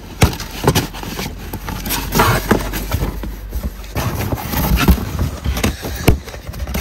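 A parcel being handled and unpacked by hand: irregular knocks, clicks and scraping rustle of the packaging and its contents.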